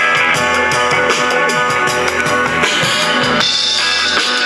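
Rock music with a steady drum beat, played through a vintage Harman Kardon Citation 12 solid-state power amplifier into a bare speaker driver. This is a listening test on the amplifier's untouched, good channel.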